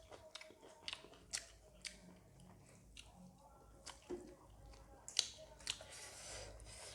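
Close-miked chewing and mouth sounds of someone eating a meal of rice, dal and dried buffalo meat curry, with irregular sharp smacks and clicks. A short rustling, squishing stretch comes near the end.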